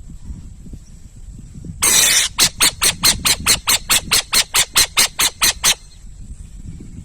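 An owl giving a harsh, hissing screech about two seconds in, then breaking into a rapid run of about fifteen short hissing calls, roughly four a second, which stop suddenly near the six-second mark.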